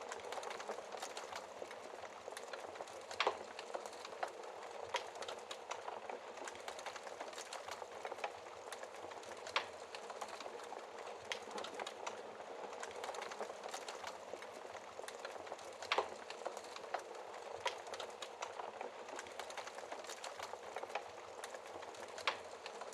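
Wood fire crackling in a fireplace: a steady hiss of small crackles with frequent sharp pops and snaps, four of them louder and spread evenly through.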